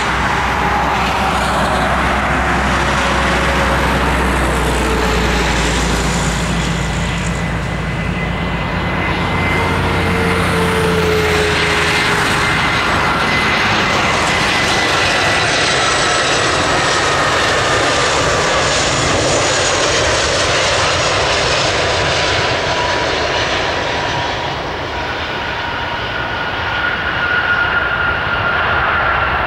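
Airbus A320 jet engines on final approach: a steady roar with whining tones that slide slowly down in pitch as the airliner passes. Near the end it touches down on the runway.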